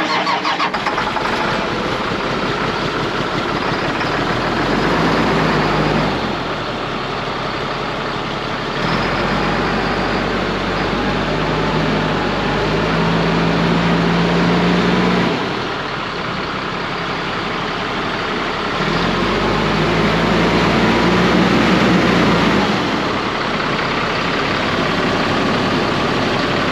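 Caterpillar diesel engine of an American diesel-pusher motorhome running, heard at its open rear engine bay, a sound likened to a D6 bulldozer. It runs steadily and three times grows louder and deeper for several seconds.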